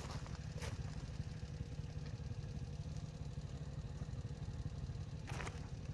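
Footsteps crunching on loose gravel and stones, a few separate steps, over a low steady rumble.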